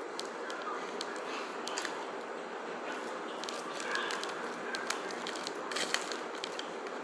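A fork scraping and clicking against an aluminium foil takeaway container as food is scooped from it: scattered short, sharp clicks, with a quick cluster about six seconds in, over a steady background hiss.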